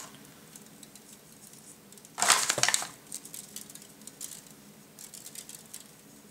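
Dry ground caspia foliage being crumbled between the fingers and worked into a model tree's branches: one short crunchy rustle about two seconds in, then faint scattered crackles.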